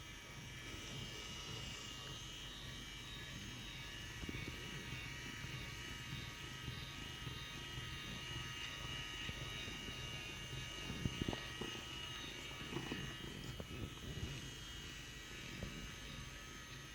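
A rechargeable electric head massager's small motor whirring steadily as it rubs a cat, with a few brief bumps and rubbing noises about two-thirds of the way through.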